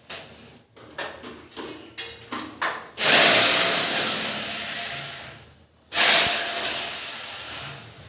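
Power drill run in two bursts of about two and a half seconds each, the second starting about a second after the first stops, preceded by a few light knocks of handling.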